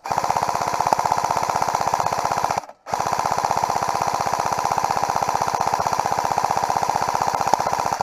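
Airsoft electric gun firing full-auto: a long rapid stream of mechanical clacks, broken once briefly about two and a half seconds in, then a second long burst.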